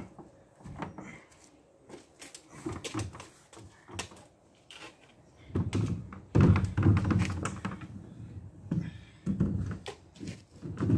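Irregular knocks and thumps of things being handled and moved about, with a louder stretch of bumping and rustling about six seconds in.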